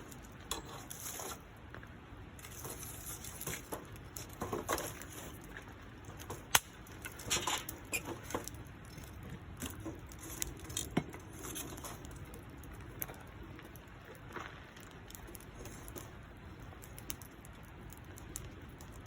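Wood campfire crackling, with irregular small pops and snaps; the sharpest snap comes about six and a half seconds in.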